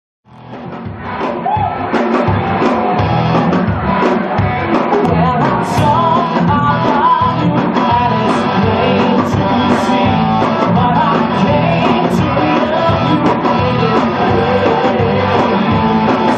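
Rock band playing with electric guitars, bass, drums and a lead singer, fading in over the first second or two and then holding steady.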